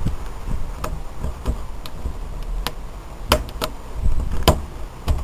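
Sharp plastic clicks and snaps, about eight at uneven intervals, as a credit card is worked along the seam of a tablet's plastic case and its snap catches let go one by one. A low handling rumble runs underneath.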